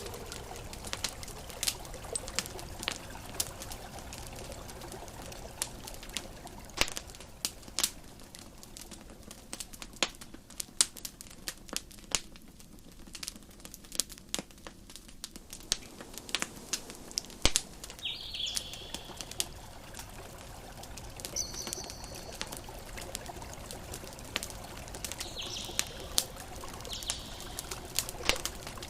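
Campfire crackling, with many sharp pops and snaps scattered through, over a steady wash of ocean waves. A few short, high chirps come in the second half.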